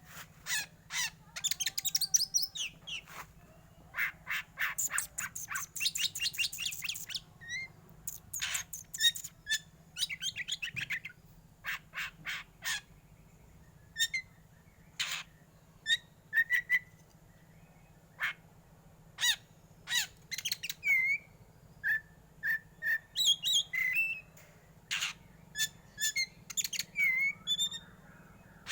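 Black magpie-robin (kacer hitam) singing: quick runs of harsh, clipped notes and fast trills, mixed with short whistled notes that hook upward, in phrases broken by brief pauses.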